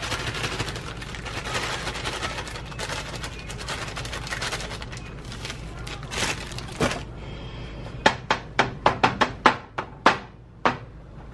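Thin plastic bag of brownie mix crinkling and rustling as the powder is shaken out of it into a foil pan. About eight seconds in comes a quick run of about ten sharp taps.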